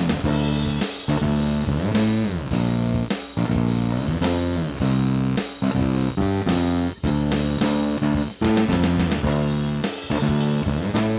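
Rock band playing: guitar and bass guitar over a drum kit, with sharp rhythmic note attacks and several sliding pitch bends.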